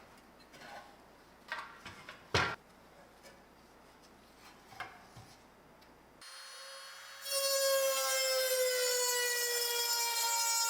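A few light knocks and clicks of parts being handled, then about seven seconds in a small power tool starts up and runs with a loud, steady high whine that sags slightly in pitch as it bears on the work.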